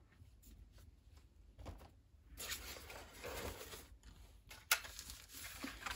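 Quiet handling sounds of an H0-scale plastic model train car being set down in its packaging tray and the next car being lifted out. A few faint clicks come first, then rustling and scraping from about two seconds in, with a sharper click about three-quarters of the way through.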